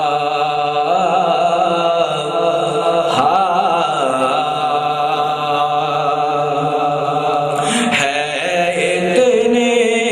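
A man's solo devotional recitation, chanted unaccompanied through a microphone in long held notes that shift pitch every few seconds.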